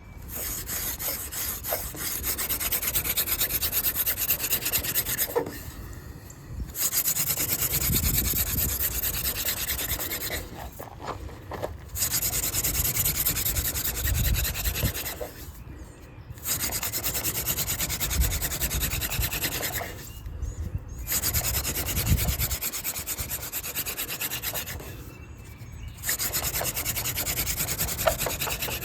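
Yucca hand-drill spindle spun between the palms into a water oak fire board: a steady rasping, friction rub to build an ember. It comes in six spells of about four to five seconds, each broken off briefly as the hands are reset at the top of the short spindle.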